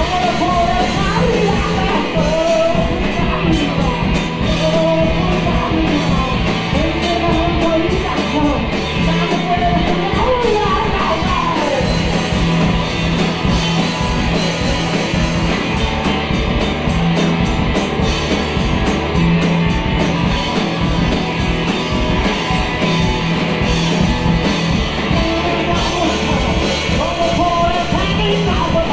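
Loud rock music with singing and a steady beat.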